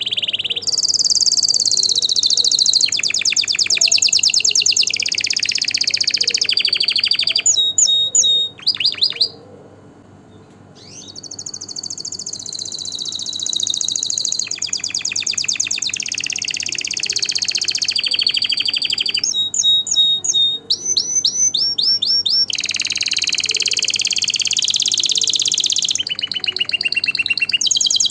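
Domestic canary singing long phrases of fast trills and repeated sharp whistled notes, with a short pause about ten seconds in before the song resumes.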